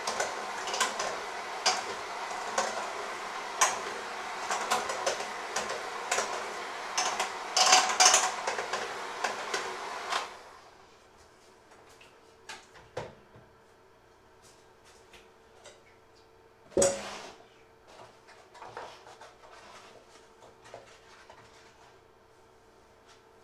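Electric hand mixer running in a stainless steel bowl, its beaters clattering against the metal, until it cuts off sharply about ten seconds in. Afterwards only small handling clicks and one loud knock about seventeen seconds in.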